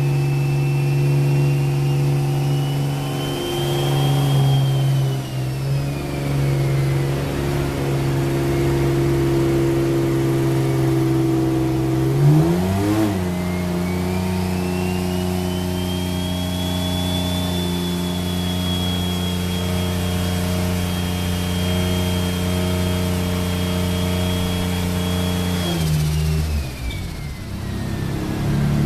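Single-turbo Nissan VQ35DE 3.5-litre V6 of a G35 running at a held, steady engine speed on a chassis dyno. About halfway through it steps up quickly to a higher steady speed, then drops back near the end. A high whine rises, holds and falls along with it.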